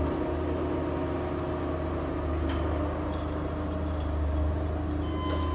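1993 Colchester Magnum 1250 engine lathe running with its spindle turning at a set speed: a steady hum from the 30 hp main drive motor and headstock gearing. A faint click comes about two and a half seconds in.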